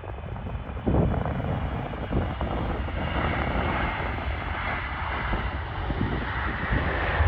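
Jet aircraft engines giving a broad rushing roar that grows louder from about three seconds in, with wind buffeting the microphone underneath.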